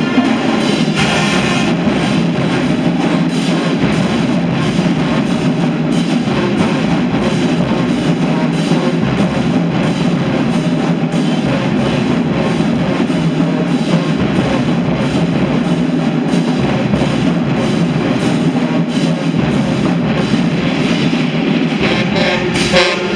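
High school marching band playing loudly, with drums and bass drum driving a steady beat.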